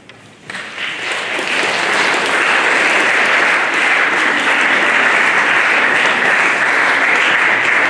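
Audience applauding, starting suddenly about half a second in and going on steadily.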